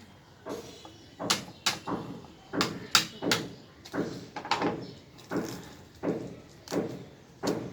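UPVC pipes and fittings clacking and knocking against each other as 9-inch pipe lengths are handled and pushed into the stand's tee and elbow joints: a dozen or so sharp knocks at an uneven pace.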